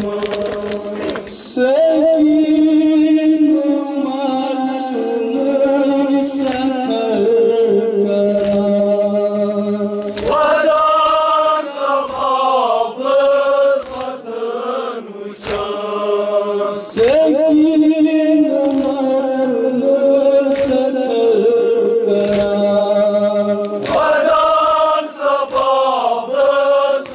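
A group of men chanting a noha, a Shia lament for Imam Husayn, in repeating sung phrases over a steady held note. Sharp slaps from chest-beating (matam) come in at intervals.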